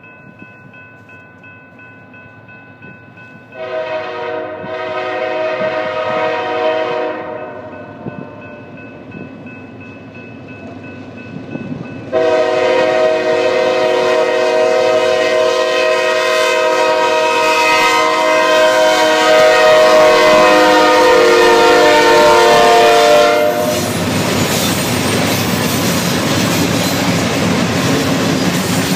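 Diesel freight locomotive's air horn sounding as the train approaches a grade crossing: a blast about four seconds in with a short break in it, then a long, loud blast that stops about 23 seconds in. The lead locomotives then pass close by with a loud steady rumble of engines and wheels on the rails.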